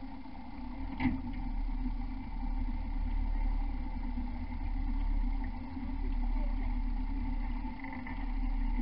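Motorboat engine running steadily at low speed, a low hum, with one short click about a second in.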